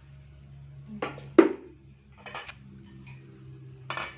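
A cooking utensil knocking and clinking against a pan three times. The first knock, about a second and a half in, is the loudest, with two lighter ones near the middle and the end.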